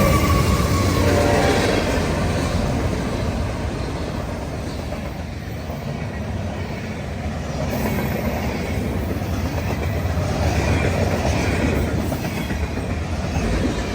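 A freight train rolling past, with its cars rumbling and clicking over the rail joints. The tail of the locomotive's horn drops in pitch and fades in the first second or two.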